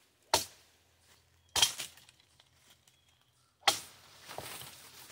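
Three sharp chopping strikes of a Cold Steel Warrior Series katana cleaving green sapling branches, the first two about a second apart and the third two seconds later, followed by rustling leaves and brush.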